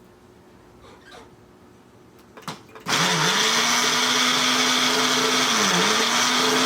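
A countertop blender is switched on just under three seconds in, after a couple of clicks, and runs loud and steady, blending a hemp seed dressing. Its motor pitch dips once briefly under load about three seconds later and then recovers.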